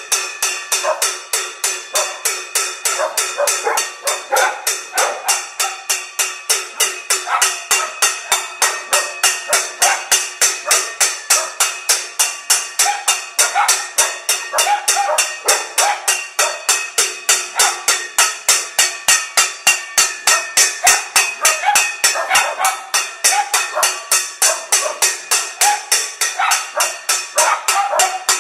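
Stainless steel pan beaten with a metal kitchen utensil in a steady, unbroken rhythm of about three ringing strikes a second: a panelaço, the Brazilian pot-banging protest.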